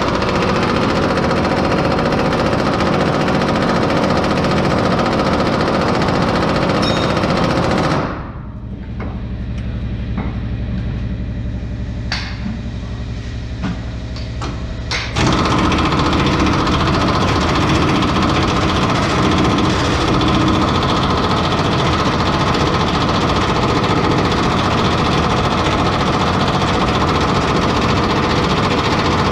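Pneumatic air tool hammering rapidly and continuously on the truck's leaf-spring suspension. It drops off for about seven seconds in the middle, leaving a lower noise with a few sharp clicks, then comes back at full level.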